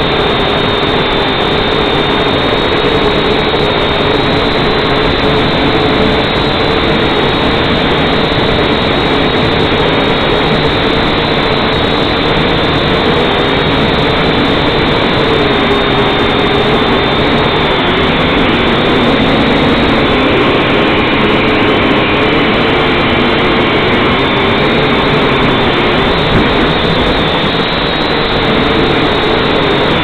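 Syma X5C-1 quadcopter's small motors and propellers whining loudly, picked up by its own onboard camera microphone, over a dense rushing noise. The whine's pitch wavers with the throttle and dips a little past halfway.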